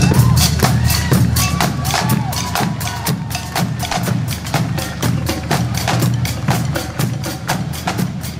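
Parade drums playing a fast, steady cadence of sharp strikes, about five a second, over a deep pulsing bass drum.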